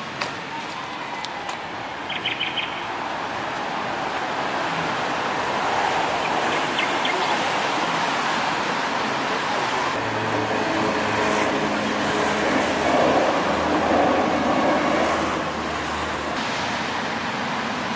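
City street traffic noise, vehicles passing, swelling louder from about ten to fifteen seconds in. A few short high chirps sound about two seconds in.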